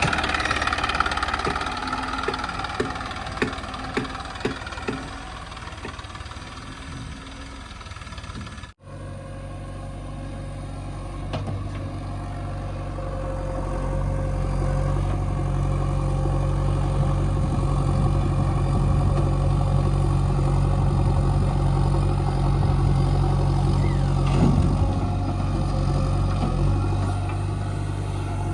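Heavy diesel engine running, with a row of sharp knocks in the first few seconds. After an abrupt break about nine seconds in, a steadier low engine drone goes on and slowly grows louder.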